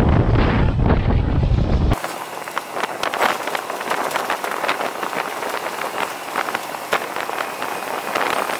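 Wind rushing over the microphone of a moving motorcycle. It is a heavy low buffeting for about the first two seconds, then an abrupt cut to a thinner, hissy rush with frequent small crackles.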